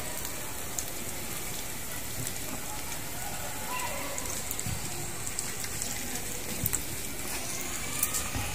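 Sliced meat and onion rings sizzling on a hot grill pan, a steady crackling hiss with a few light clicks.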